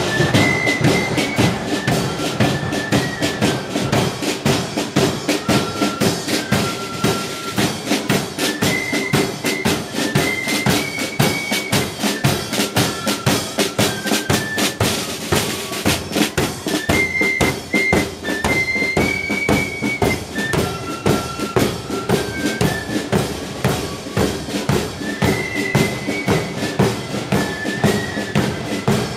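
Marching flute band playing a tune: flutes carry a high melody over snare drums and a bass drum beating a steady march rhythm.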